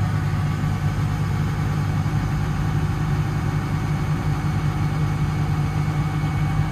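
Develon DL280 wheel loader's diesel engine running steadily at idle, heard from inside the cab while the loader arm is being raised.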